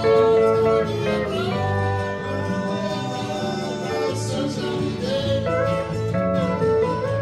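Live band music in a country-rock style: acoustic guitar, banjo, pedal steel guitar and electric bass playing together, with gliding notes from the steel guitar.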